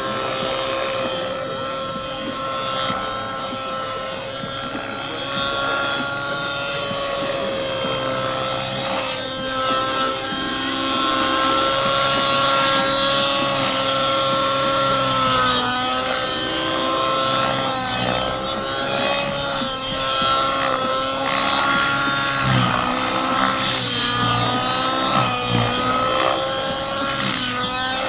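Align T-Rex 700 nitro RC helicopter's two-stroke glow engine and rotors running at high head speed in 3D flight: a steady high engine whine whose pitch dips and wavers briefly several times in the second half as the helicopter is thrown through manoeuvres.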